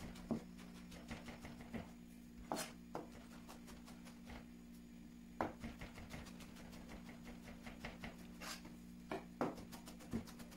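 Chef's knife mincing boletus mushrooms on a plastic cutting board: irregular knocks and taps of the blade striking the board, with a steady low hum underneath.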